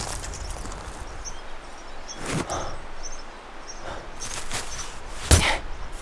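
Faint outdoor ambience with soft rustles of a person shifting in snow, and one sharp crunch of snow about five seconds in as a gloved hand grabs a handful.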